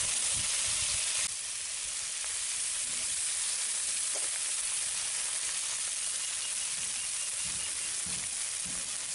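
Chelwa fish frying in hot mustard oil in an iron kadhai: a steady sizzle that drops a little about a second in.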